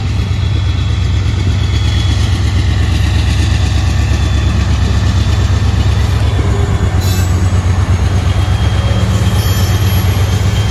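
Freight train passing close: a loud, steady low rumble, with a brief sharp high sound about seven seconds in.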